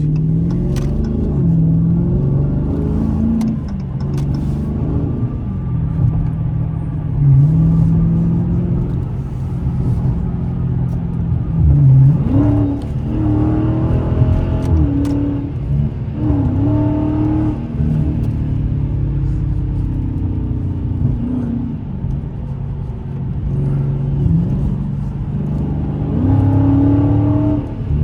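Straight-piped Dodge Scat Pack's 392 HEMI V8 exhaust while driving under acceleration, the engine pitch rising and dropping several times as it revs up and changes gear.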